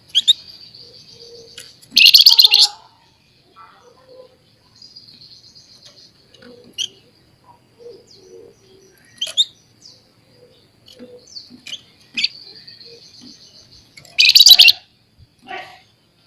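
Javan fulvetta (flamboyan, wergan jawa) singing: thin, high, sustained buzzing trills broken by short sharp notes. Two loud, harsh chattering bursts come about two seconds in and again near the end.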